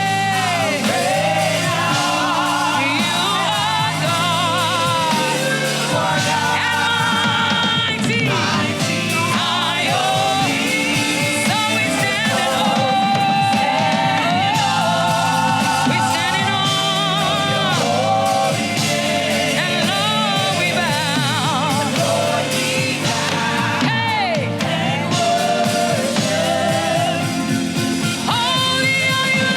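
Live gospel praise-and-worship music: a singer over accompanying instruments, her voice sliding and bending through sustained lines.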